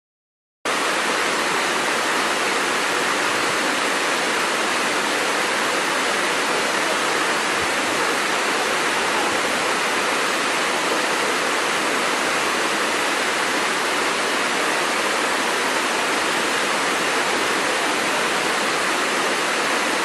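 Waterfall: a steady, even rush of falling water that cuts in suddenly about a second in.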